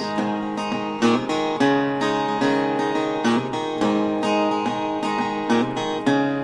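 Acoustic guitar playing chords in a steady rhythm, about two strokes a second, with no singing.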